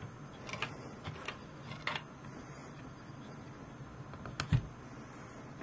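Small clicks and taps of a circuit board and its plastic enclosure being handled and set into a metal helping-hands clamp, with one louder knock about four and a half seconds in.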